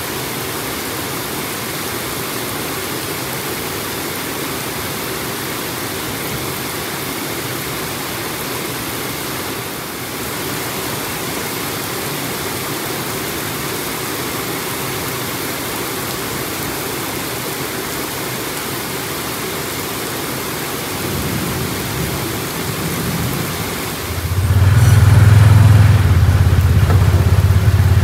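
Heavy rain pouring down in a steady hiss. About twenty-four seconds in, a loud low rumble comes in and drowns it out.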